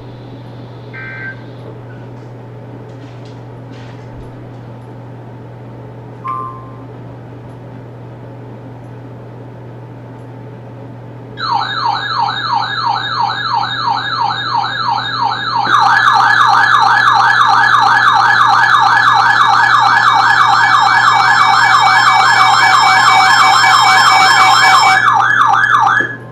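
A steady low electronic hum over faint radio noise, then about 11 seconds in a loud electronic siren tone starts, warbling rapidly up and down several times a second. About 16 seconds in it jumps louder with a second warbling layer, then cuts off suddenly near the end.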